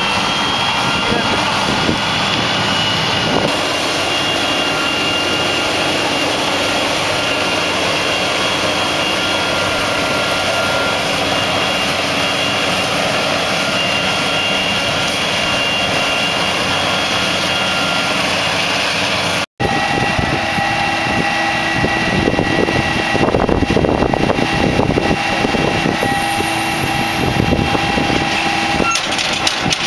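Krone BiG X 1100 forage harvester chopping maize: a loud, steady drone of its V12 diesel engine and crop-processing gear, with several high, steady whining tones over it. A short break about two-thirds through; after it the sound is rougher.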